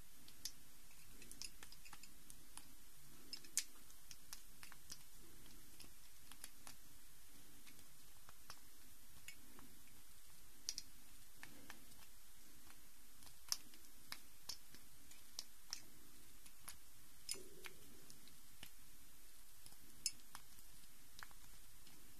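A bar of soap being rubbed over the plastic core of a disassembled Rubik's cube to lubricate it for smoother turning: faint rubbing, with occasional sharp plastic clicks at irregular moments.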